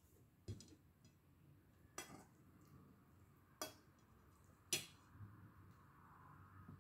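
Fork clinking against a plate four times, about a second and a half apart, as pancit noodles are picked up; the last clink is the loudest.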